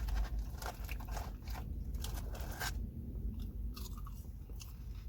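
A person chewing and biting food close to the microphone, with crunching that is dense in the first three seconds and sparser after.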